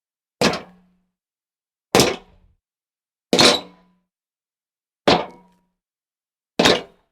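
Five separate jumping sound effects, each a short thud that dies away quickly, about a second and a half apart.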